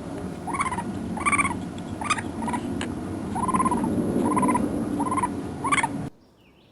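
Raccoon calling: a run of about eight short chirring calls, each rising and falling, roughly one a second, over a steady noisy background. The sound cuts off about six seconds in.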